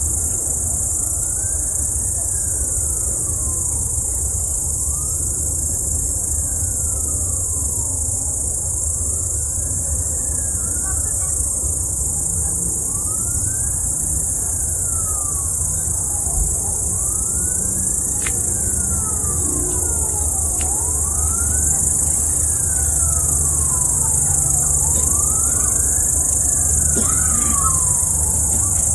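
Wailing siren rising and falling in pitch about every two seconds, with two wails overlapping out of step, over a steady low rumble and a high hiss.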